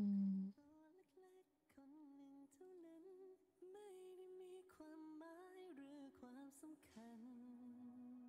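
A woman's brief loud closed-mouth hum at the very start. After it comes soft, slow background music with a gentle, sung-sounding melody.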